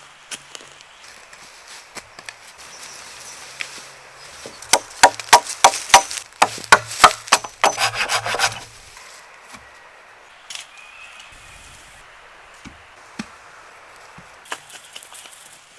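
Wood being worked by hand with a tool: a quick run of loud, sharp wooden knocks and scrapes in the middle, with scattered single knocks before and after.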